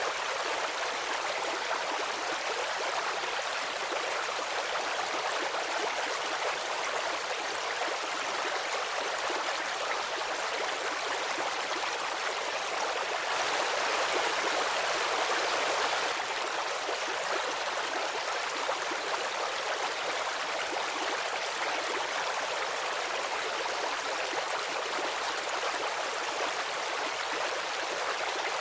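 Stream running over rocks, a steady rushing and gurgling of water, slightly louder for a few seconds around the middle.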